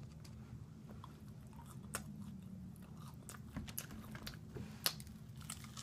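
Close-miked chewing and biting of crispy fried chicken: a scattered run of sharp crunchy clicks, with louder crunches about two seconds in and again just before the end.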